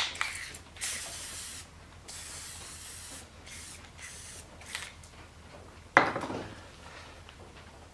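Aerosol can of 3-in-1 oil spraying in several short hissing bursts onto a rusty cast-iron table saw top, to soak the rust spots. There is a sharp knock about six seconds in.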